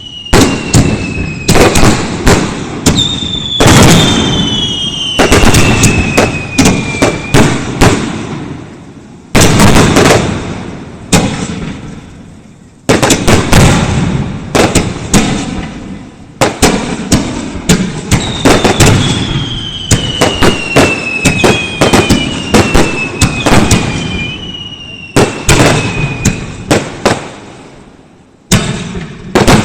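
Fireworks display: rapid volleys of sharp bangs and crackles in quick succession, each fading off, with several whistles that fall in pitch over a couple of seconds. Dense barrages come in clusters with brief lulls between them.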